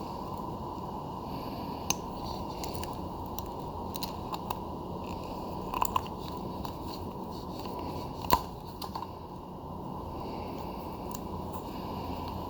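Steady background hiss with a few scattered sharp clicks, the loudest about eight seconds in: small metal fishing snaps, crimps and line being handled.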